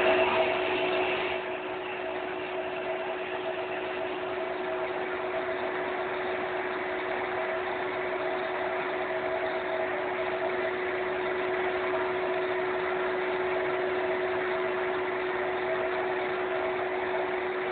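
TUS 16 lathe converted to CNC, running steadily: an even mechanical hum with a steady whine held at one pitch.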